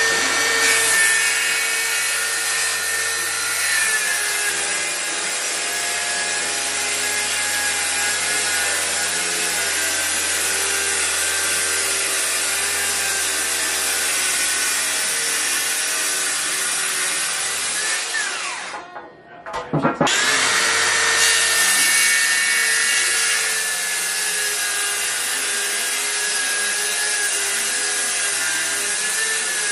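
DeWalt cordless circular saw running on a track saw guide rail, ripping thick 8/4 ash boards, with a steady motor whine under the cutting noise. About two-thirds of the way through the sound drops away for about a second, then the saw spins up again and keeps cutting.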